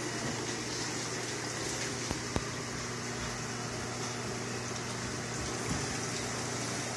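Saltwater aquarium's water pump and filtration running: a steady rush of moving water over a low, even hum, with two small clicks a little over two seconds in.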